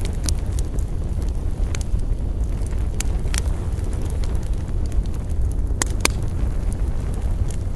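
Wood campfire burning with a steady low rumble and irregular sharp crackles and pops, two louder pops close together about six seconds in.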